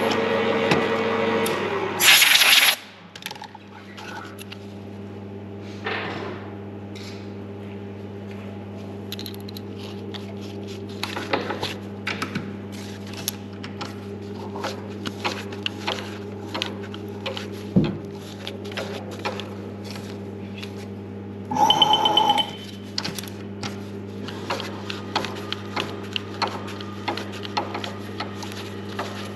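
Milling machine work: a running machine stops about a second and a half in. A steady hum remains, with scattered light metallic clicks and knocks of handling. Two short loud hisses break in, about two seconds in and again near twenty-two seconds.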